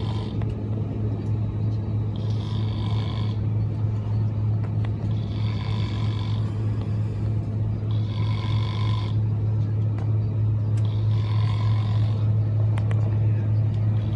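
Steady low drone of a jet airliner's cabin in flight, with a person snoring about every three seconds.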